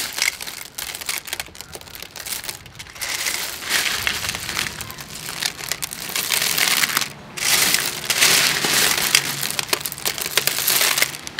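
Handfuls of tiny cone-shelled sea snails stirred and let fall back into a stainless steel bowl: the shells clatter against one another in a dense crackle of many small clicks, louder in the last few seconds.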